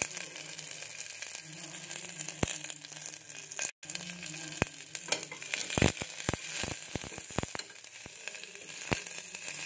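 Shallots, curry leaves and cumin sizzling in a little hot oil in an aluminium pressure cooker pot, a steady hiss. From about halfway through, a spatula clicks and scrapes against the pot as they are stirred.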